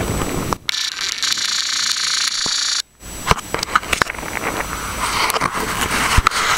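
Wind rumbling on the microphone over open water, giving way for about two seconds to a high hiss with no low end, then a run of sharp knocks and clicks over the rumble.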